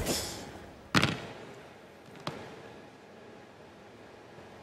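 Sharp thumps of a performer on the stage floor as she drops down and sits: a loud one at the start, another about a second in, then a small knock a little after two seconds.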